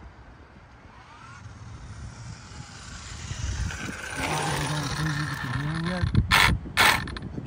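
Arrma Limitless RC car running on asphalt toward the camera, its electric motor and tyres on the asphalt growing steadily louder. There is a pitched whine that bends up and down, then two short, loud bursts near the end.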